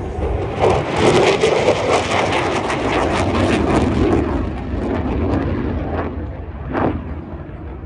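Aircraft flying past with a rough, crackling engine noise, loudest in the first few seconds and then fading, over a steady low rumble.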